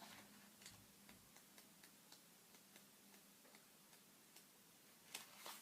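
Near silence in a small room: faint, regular ticking about twice a second, with a short rustle about five seconds in.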